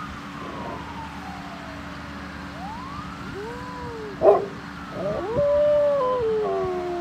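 A dog howling in long sliding calls that rise and fall in pitch. There is a short sharp yelp about four seconds in, then a louder howl that starts high and slides down.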